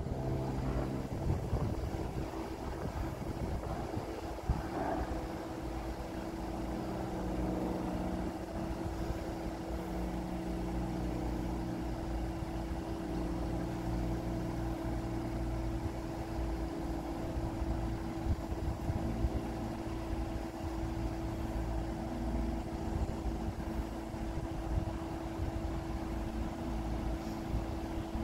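Idling road vehicle engine: a steady hum with a constant low drone that settles in about four seconds in.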